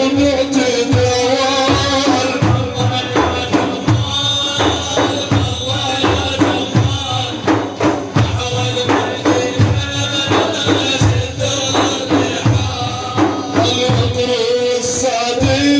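Instrumental music break in a religious praise song: hand percussion beats a steady rhythm under a held melodic line, with no singing.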